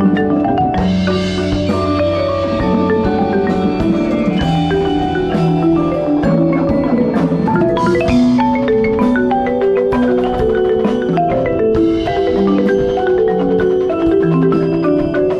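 Concert marimba played with four yarn mallets, a fast, continuous passage of many ringing notes, some struck together as chords. A steady low hum sits underneath.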